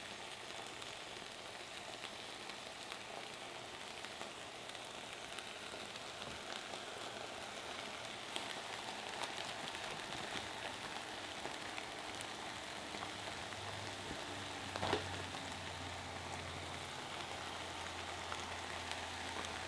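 Buttered croissants sizzling steadily on a hot grill, with a brief knock about fifteen seconds in.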